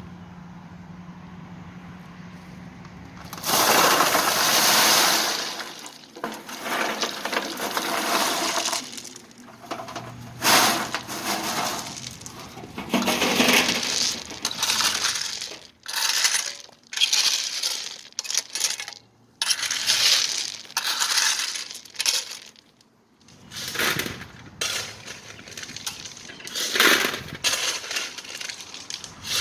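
River stones being poured out and spread over the ground, clattering in repeated bursts of a second or two, starting a few seconds in.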